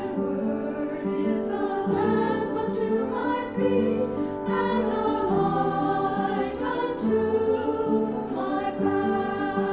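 A choir singing a hymn in harmony, several voices holding notes together and moving from chord to chord every second or so.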